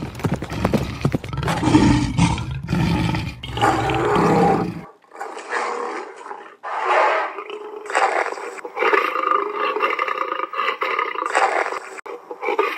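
Creature roars laid over the footage: deep, rumbling roars for about the first five seconds. After a sudden cut, a series of higher-pitched roaring and screeching calls follows.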